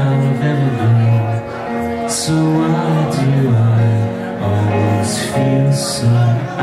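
Indie band playing a song live: electric and acoustic guitars and keyboard under a man singing into the microphone, with steady held low notes.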